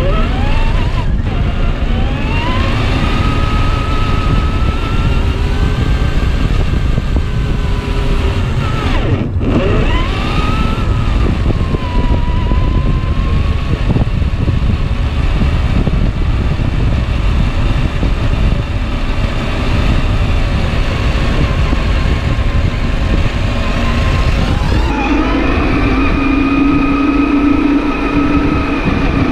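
RC4WD Desert Runner 1/10 scale truck's electric motor and drivetrain whining, rising and falling in pitch as the throttle changes, over a steady low rumble. Near the end the whine settles to a steady pitch.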